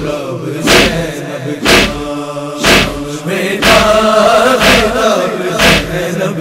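Group of male voices chanting a noha in long held notes, with a sharp beat about once a second from matam, hands struck on the chest in time with the lament.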